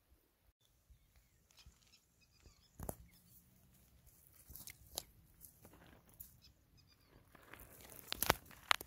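Dry grass and stems rustling and crackling as they are handled at close range. The crackles are scattered and faint, with a louder cluster near the end.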